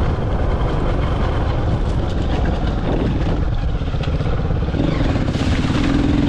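Motorcycle engine running as the rider travels along a dirt track, with a steady low drone; about five seconds in, the engine note climbs slightly as it picks up revs.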